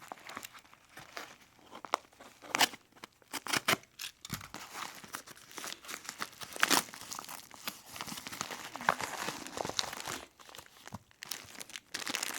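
Packaging of a mailed parcel being torn open and crinkled by hand, in irregular rustles and crackles with a few sharper snaps.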